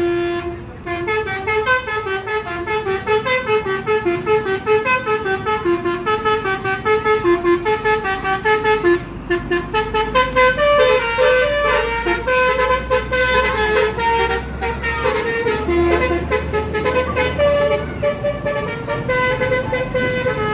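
Telolet multi-tone truck horn playing a quick tune of short notes that step up and down in pitch over and over, with a low rumble beneath it through the middle stretch.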